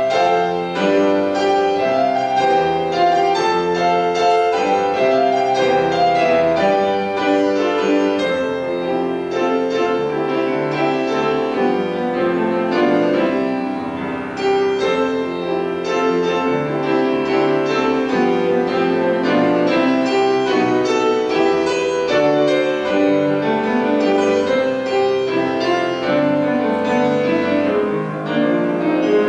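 Piano playing continuously, a steady flow of melody notes over chords.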